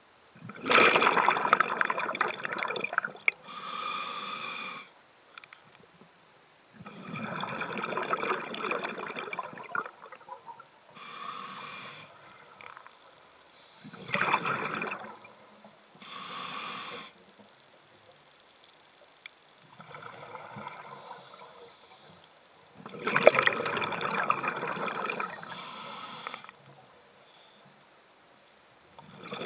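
Scuba diver breathing through a regulator, heard from the mask: a shorter hiss of air drawn through the regulator alternates with longer rough bursts of exhaled bubbles, about five breaths in a slow, even rhythm.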